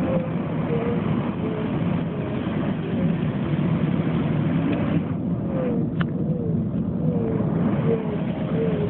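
Steady low rumble of a car's engine and tyres, heard from inside a moving car, with a faint wavering whistle and a single tick about six seconds in.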